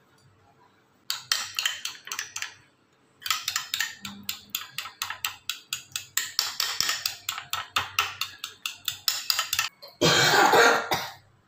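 Metal spoon stirring thick curd in a plastic tub: quick scraping clicks against the tub, a short run about a second in and then a long fast run of about four or five strokes a second. Near the end comes a louder, steady rushing noise lasting about a second.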